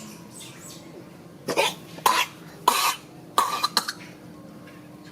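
A nursing mother animal coughing: four coughs in quick succession, between about one and a half and four seconds in. The coughing is a sign she is unwell.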